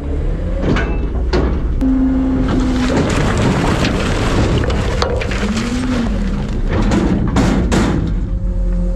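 Front-load garbage truck at work in the hopper: a dense crash of refuse tumbling in, with a pitched hydraulic whine that shifts in pitch over a steady engine rumble. Sharp bangs come twice in the first second and a half and three times in quick succession near the end.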